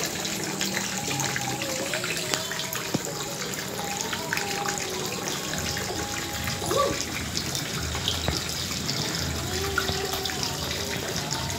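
A steady rushing noise like running water, with faint wavering tones above it.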